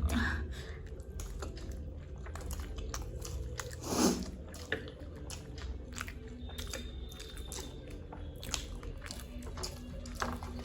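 Close-up chewing of a crunchy puffed-rice (muri) meal: many small crisp crunches in quick succession, with one louder, longer sound about four seconds in.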